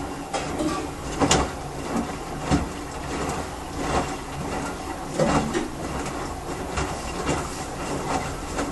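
Samsung washing machine early in its wash cycle, moving the clothes through the water in its basket. It makes irregular sloshing strokes about once a second over a steady churning, at the stage where it wets the load and sets the water level.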